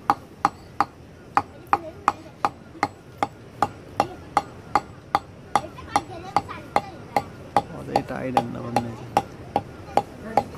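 Hammer striking over and over on a stone slab, in steady even blows about two and a half a second.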